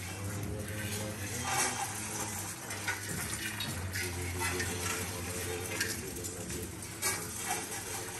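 Several people at once heaping uncooked rice onto metal mandala offering plates and wiping it off, a continuous rattling and scraping of grains on metal broken by scattered sharp clinks.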